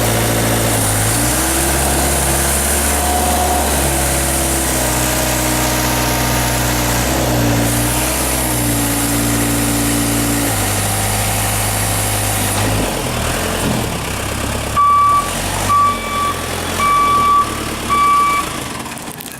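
Case 580E backhoe's diesel engine running, its pitch shifting several times as it is worked, then dropping off about two-thirds of the way through. Four short electronic beeps at one steady pitch follow near the end.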